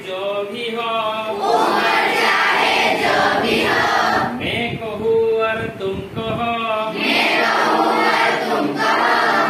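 A class of schoolboys and schoolgirls singing together as a group, with some hand clapping along.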